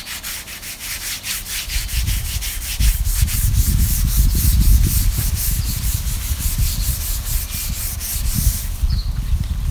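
An abrasive grip pad scrubbed back and forth over carved wood wet with paint stripper, in quick repeated scratchy strokes, working the last remnants of the old finish out of the grain. A low rumble joins in about two seconds in.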